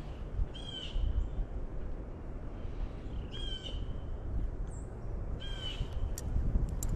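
A bird giving short, harsh calls, three of them about two and a half seconds apart, over a steady low rumble.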